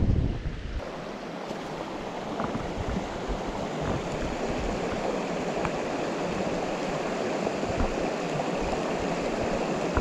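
The water of a small mountain stream running steadily, with a low rumble at the start that cuts off about a second in.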